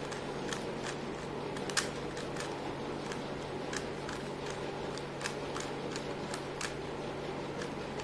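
A 3x3 Rubik's Cube being turned by hand: its plastic layers click as the faces are rotated, in irregular clicks about one to three a second, the loudest a little under two seconds in, over a steady low hum.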